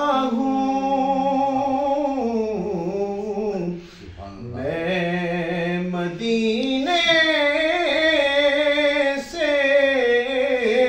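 A man singing an Urdu naat unaccompanied, drawing out long held notes that slide slowly up and down in pitch. He breaks off briefly for breath about four seconds in and again near the end.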